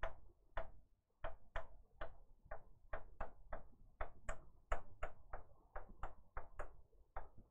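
Writing on a board by hand: an uneven run of faint, short taps, about three a second, as the writing tip strikes the board stroke by stroke.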